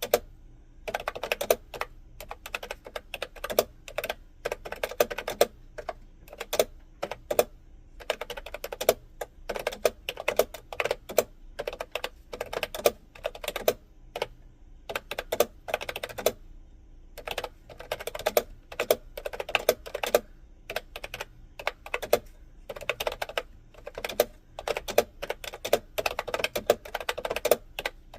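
Typing on a computer keyboard: fast runs of key clicks in bursts of several seconds, with brief pauses between them.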